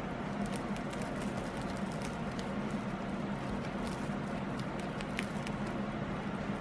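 Small, irregular crackles and rustles of dry woven timothy hay as guinea pigs move against and in an Oxbow Timothy hay tunnel, over a steady low hum.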